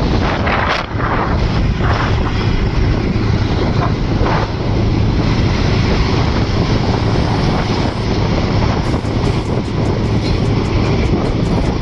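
Motorcycle riding at cruising speed: steady engine sound mixed with wind rushing over the microphone.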